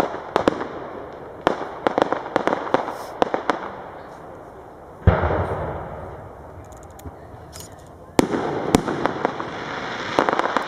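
Aerial fireworks display: a rapid string of sharp bangs and crackles, then one heavy boom about five seconds in that rumbles away. After a short lull, another dense volley of bangs and crackling starts near the end.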